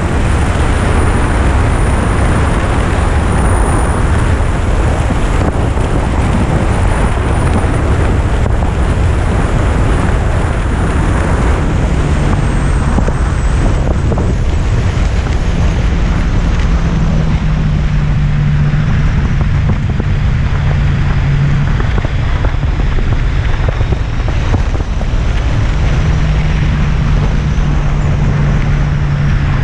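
Yamaha FJR sport-tourer's inline-four engine running at road speed under heavy wind rush on the microphone. The engine's steady drone becomes clearer about halfway through.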